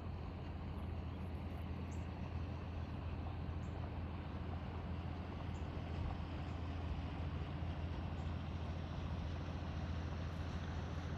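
Boat engine running steadily with a low, even hum, with a few faint high chirps over it.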